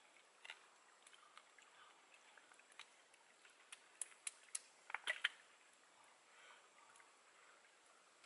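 Near silence with a few small, sharp clicks and cracks, spaced out at first, then a quick cluster of louder ones about five seconds in.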